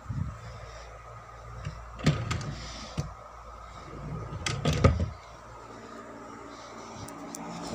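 A drawer being slid open and handled, with a few knocks and clicks and a louder sliding scrape about five seconds in.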